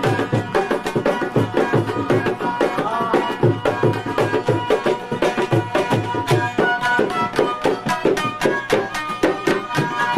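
Brahui folk instrumental music: a hand drum beating a steady, fast rhythm under a stringed instrument holding sustained melody notes.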